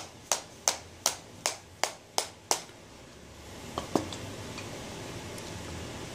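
Tin of Copenhagen dip being packed: a steady run of eight sharp snaps, about three a second, as the can is whipped against the fingers, stopping about two and a half seconds in. Two softer clicks follow near four seconds in, then only room tone.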